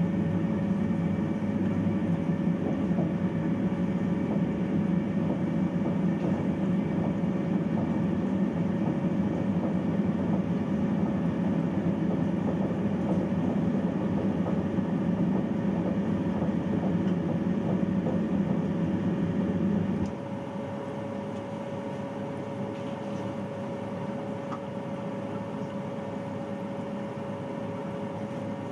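Bathroom boiler running with a steady hum and low rumble. About twenty seconds in the rumble cuts out abruptly and the sound drops to a quieter steady hum.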